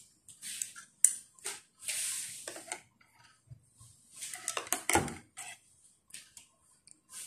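Chopsticks and a metal spoon clinking and scraping against a pot and a glass bowl as noodles are moved into the soup: a run of short, irregular clicks and scrapes, with a louder knock about five seconds in.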